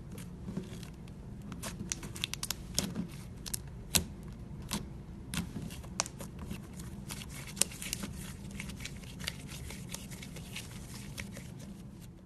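Slime being squeezed and stretched by hand: irregular crackling clicks and pops as air pockets in the slime burst, over a low steady background hum.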